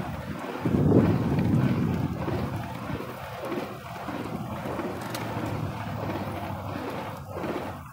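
Wind buffeting the microphone of a camera on a moving bicycle: a rushing, rumbling noise that swells strongest about a second in and then settles to a steadier rush.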